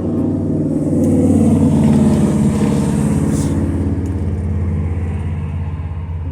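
A vehicle engine running; it revs up about a second in, then settles into a steady run.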